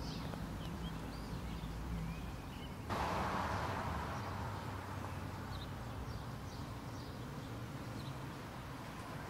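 Outdoor ambience of birds chirping over a steady low hum of road traffic. About three seconds in a louder rush of traffic starts abruptly and slowly dies away.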